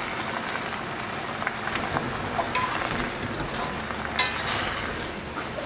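Yu choy sizzling in a hot wok with garlic oil as it is turned with a spatula, with scattered clicks of the utensil against the wok and one sharper knock about four seconds in.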